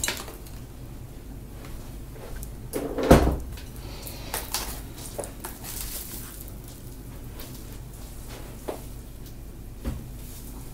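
Items being moved and set down on a work bench: one solid knock about three seconds in, then a few lighter clicks and taps.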